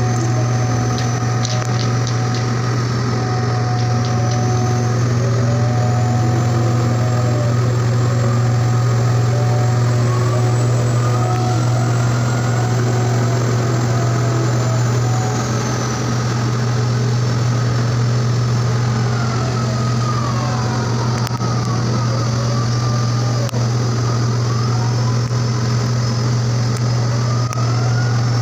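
Steady low drone of a large marine diesel engine idling, with fainter whining tones gliding up and down over it.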